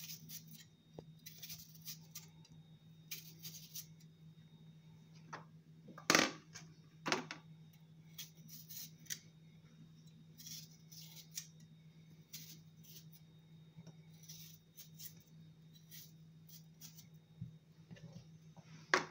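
Kitchen knife peeling a kiwi: short scraping swishes of the blade against the fruit's skin. There are two sharp knocks about six and seven seconds in and another at the very end, over a steady low hum.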